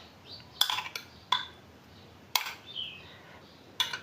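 About five scattered, sharp clinks of utensils against metal plates and bowls during a meal.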